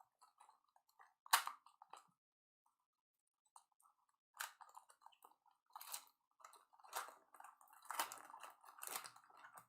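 Football trading-card pack being torn open and its cards handled: a sharp wrapper crinkle about a second and a half in, then short soft crinkles and card flicks about once a second through the second half.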